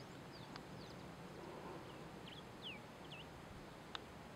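Faint small-bird chirps in the background: short high notes falling in pitch, scattered through, over a low steady hiss, with a couple of soft clicks.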